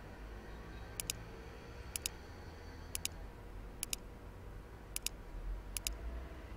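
Computer mouse button clicked six times, about once a second, each click a quick press-and-release pair, over a low steady hum.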